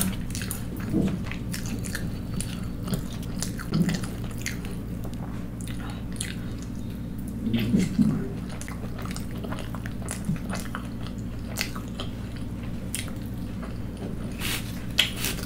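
Close-miked chewing and wet mouth clicks of a person eating soft fried puri bread with curry, with a few louder bites about a second in, around four seconds and around eight seconds, over a faint steady low hum.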